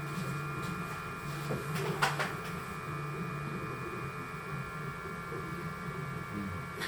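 Flashforge 3D printer at work: its motors hum and shift in pitch as the print head moves, over a steady high whine, with a brief scrape about two seconds in.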